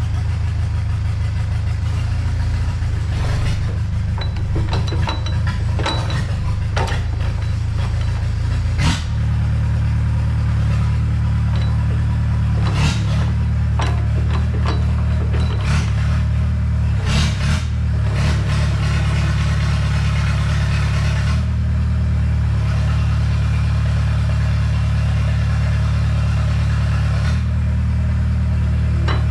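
Komatsu PC60-5 excavator's freshly rebuilt diesel engine running steadily, its note shifting slightly about nine seconds in, with several sharp knocks and clanks over it.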